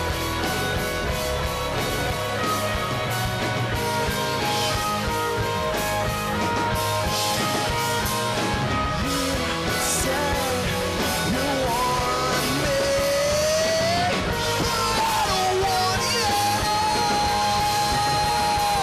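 Live rock band playing: electric guitars, bass and drums with a singer. In the second half a long held melody note slides up and down before settling over the band.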